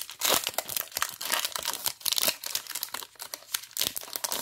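Foil hockey card pack wrapper crinkling and crackling as it is handled, in a dense run of irregular crackles that thins out near the end.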